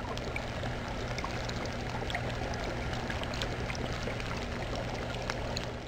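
Aquarium water trickling and bubbling, with many small scattered pops of bubbles at the surface, over a low steady hum from the filter.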